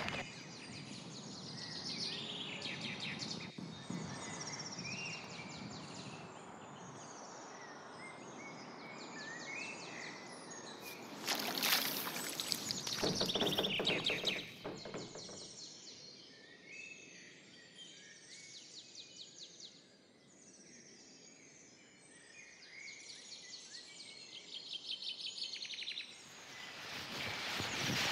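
Birds chirping over a bed of outdoor ambient noise, with a louder rush of noise lasting a few seconds about eleven seconds in and another building near the end.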